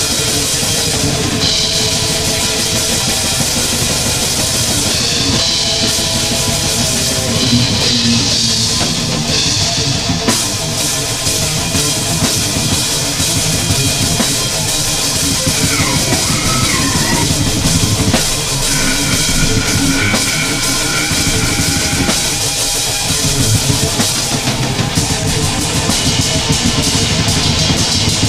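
Improvised heavy metal jam: a drum kit played hard with bass drum and cymbals, along with amplified instruments. A note slides downward in pitch about sixteen seconds in.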